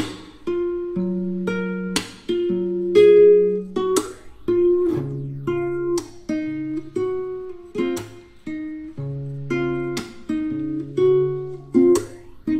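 Background music: plucked guitar playing chords and single notes at an easy, even pace.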